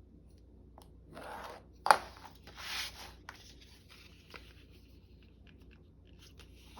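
Paper being handled at a craft table: a brief swish, one sharp snap about two seconds in, then a longer rustling rub and a few light ticks.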